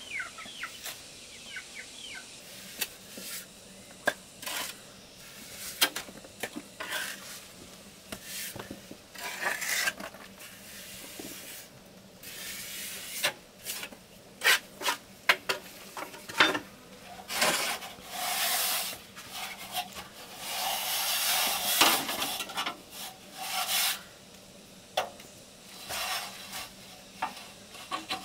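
A trowel scraping and tapping as wet cement render is spread on a block wall: irregular rasping scrapes broken by sharp clicks, with longer scraping strokes in the second half.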